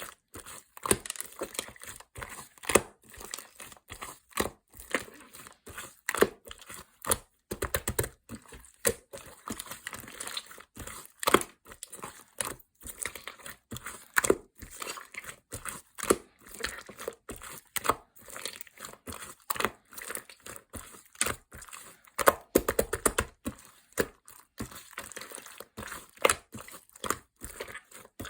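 Close-up crackling and crinkling handling sounds: many quick, irregular clicks and pops, several a second.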